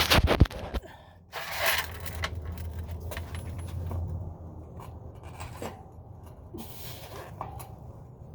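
Metal clinks and scraping as the rear axle spindle of a Husqvarna Svartpilen 701 is worked out of the wheel hub by hand, with a burst of sharp knocks in the first second and scattered fainter clicks after.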